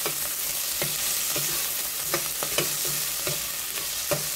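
Chopped onion, ginger, garlic and chili sizzling in hot oil in a stainless steel pot while being sautéed, with a utensil scraping and knocking against the pot as the mix is stirred, about two knocks a second.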